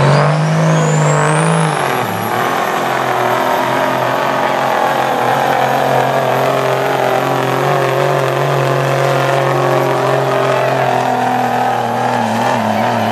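Semi truck's diesel engine running at full throttle under heavy load as it drags a weighted pulling sled. A high turbocharger whine rises steeply over the first two seconds and then holds steady above the engine note.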